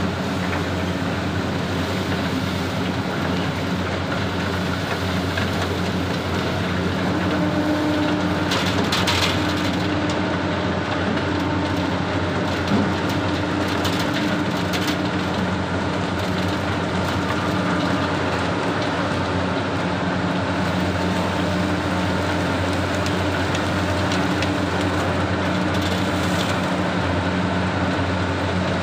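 Sugar mill machinery at the cane unloading yard running with a steady drone and a low hum. Brief higher-pitched noises rise out of it about nine seconds in and again near the end.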